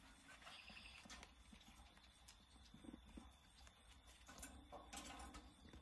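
Near silence: faint room tone with a few soft scattered clicks and taps.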